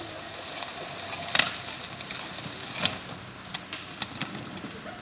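Branches and twigs snapping and scraping as a small 4x4 forces its way through dense brush: a loud crack about a second and a half in, another near three seconds, then a quick run of smaller snaps.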